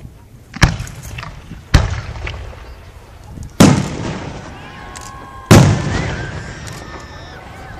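Aerial fireworks shells bursting: four sharp bangs, the third and fourth the loudest, each trailing off in a rumbling echo.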